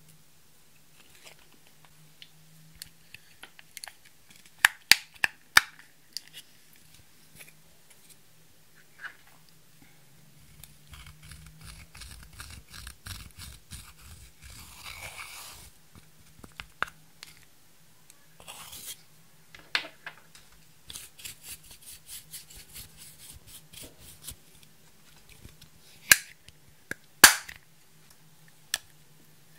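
Makeup being handled over a clear glass dish: scattered clicks and taps of plastic cases and applicators on the glass, and a stretch of scraping and crumbling as pressed blush is broken up into powder. Two sharp, loud clicks come near the end, over a faint steady hum.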